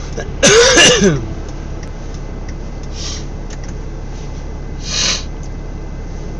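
A short, loud vocal outburst from a person about half a second in, over a steady low hum of the vehicle's engine and road noise. Two brief hisses follow, about three and five seconds in.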